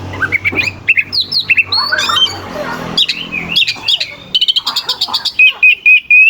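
Oriental magpie-robin (kacer) in full loud song: a rapid, varied string of whistled notes and harsh scratchy calls, with clicking rattles in the middle and a quick run of repeated notes near the end.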